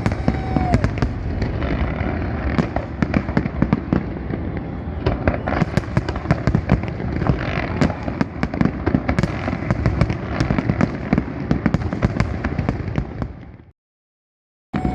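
Fireworks salute, a dense barrage of overlapping bangs and crackling bursts with a constant rumble beneath. It fades out near the end and breaks off into total silence for about a second before starting up again.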